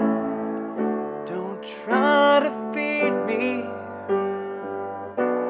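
Piano chords struck about once a second, with a male voice singing a short line in the middle.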